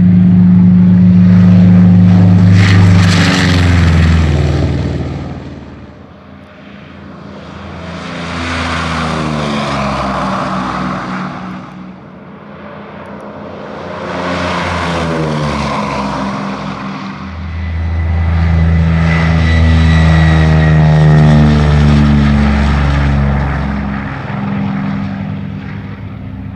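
Piston-engined World War II fighters going by one after another at full takeoff power: first a P-47 Thunderbolt's radial engine, then twin-engined P-38 Lightnings with Allison V-12s. Four passes in all, each growing louder and then dropping in pitch as the aircraft goes past.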